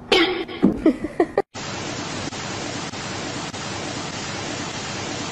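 Short, loud, gliding cries and scuffle noises from a cat and kitten tussling for about a second and a half. After an abrupt cut, a steady, even hiss runs on.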